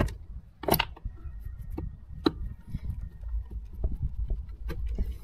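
A screwdriver clicking and scraping against the metal body of a Trabant carburetor as it is worked on by hand: a handful of sharp clicks and taps, the loudest within the first second, over a low rumble.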